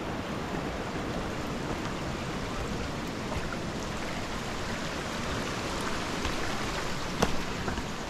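Shallow stream running over stones and gravel, a steady rushing babble. A few short clicks come about seven seconds in.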